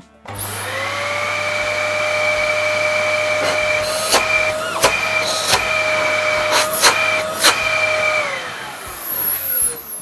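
Dyson DC29 canister vacuum cleaner, fitted with an aftermarket DC19-type replacement motor, switched on for its test run. The motor spins up with a rising whine, runs steadily with a few sharp clicks, then shuts off about eight seconds in and winds down with a falling whine. The new motor runs properly.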